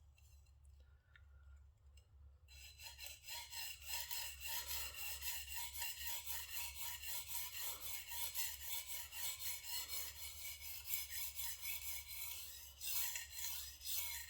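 Shigeki Tanaka gyuto blade being stroked back and forth across a whetstone: a steady run of gritty scraping strokes that starts a couple of seconds in. This is sharpening to raise a burr along the edge.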